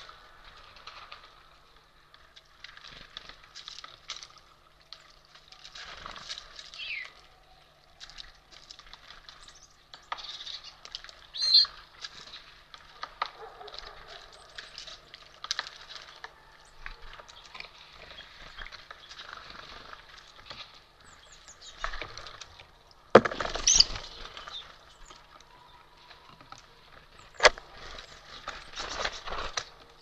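Hen common pheasant pecking at seed in a wicker feeding basket: irregular tapping and rustling of seeds and shells, with two louder knocks in the last third. A few short bird calls come through now and then.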